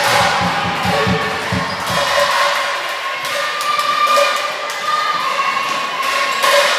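A low regular beat, about four a second, that stops a little over two seconds in, over a steady mix of pitched sound in a large indoor sports hall.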